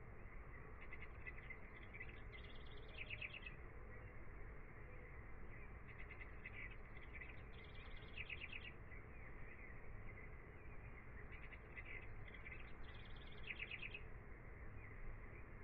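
Birdsong: a phrase of quick repeated chirps a couple of seconds long, heard three times about five seconds apart, over a low steady hiss.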